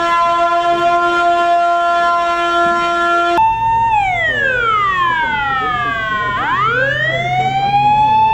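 An alarm siren sounds a steady, unwavering tone. About three and a half seconds in it gives way to a fire engine's wailing siren, which slowly falls and then rises again over the engine's low running.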